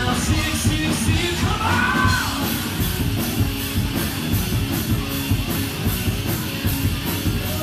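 Live rock band playing loud: electric guitars and drums, with an even, steady cymbal beat.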